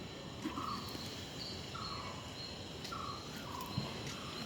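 Steady outdoor background noise with a short chirp repeating about once a second.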